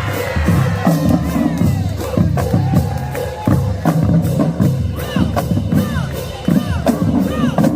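Marching band playing, with bass drums and percussion driving a dense rhythm under low brass, and the crowd shouting over it. The playing breaks off near the end.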